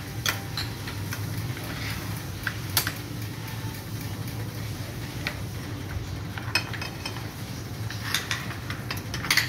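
A metal spoon clinking and scraping against a glass bowl as chopped ingredients are spooned in and stirred, in scattered sharp clinks over a steady low hum.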